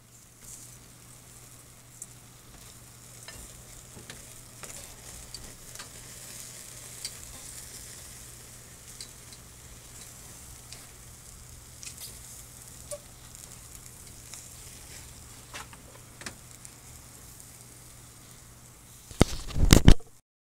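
Lobster tails and vegetables sizzling on a mesh grill grate over a charcoal fire, a steady hiss with scattered sharp pops and crackles. A short loud burst of rumbling noise comes about a second before the end.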